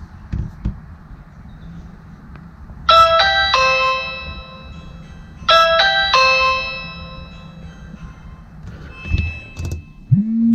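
Ring Video Doorbell 2 chime being tested: a quick run of bright bell-like notes, played twice about two and a half seconds apart and starting again at the end. Under it is a low steady hum, with a few dull thumps near the start and near the end.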